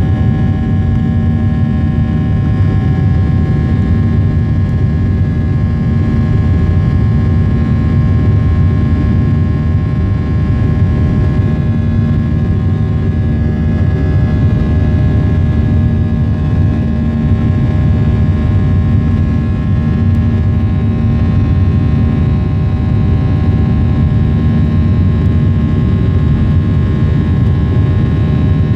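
Cabin noise of a Boeing 737-700 climbing out after takeoff, heard beside its CFM56-7B engine. A steady heavy rumble with several steady whining tones above it.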